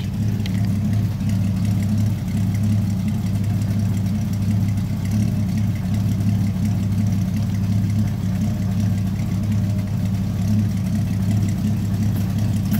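Old Ford pickup truck's engine idling steadily at the tailpipe, warming up just after a cold start.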